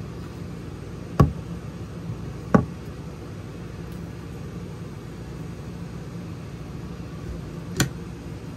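Three sharp knocks, about a second in, at two and a half seconds, and near the end, over a steady low hum.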